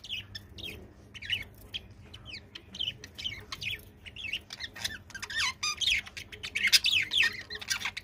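A group of budgerigars chattering: many quick, short chirps and squawks overlapping, growing busier and louder in the second half.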